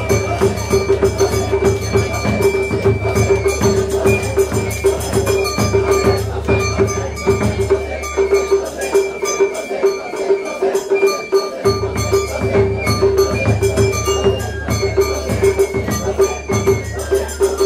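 Traditional Japanese festival music (matsuri bayashi) with percussion struck in a quick, steady rhythm over held tones.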